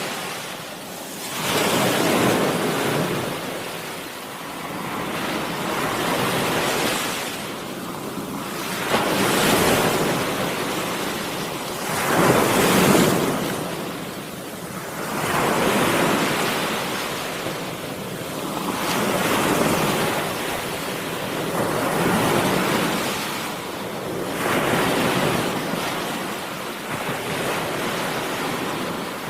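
Ocean-wave sound effect: a rushing surf noise that swells and falls away about every three seconds, like waves breaking and washing back.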